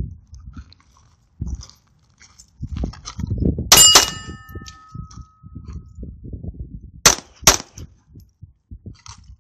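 Sig Mosquito .22 LR pistol firing four shots in two quick pairs. The first pair is followed by a metallic ring that fades over a couple of seconds; the second pair comes about three seconds later.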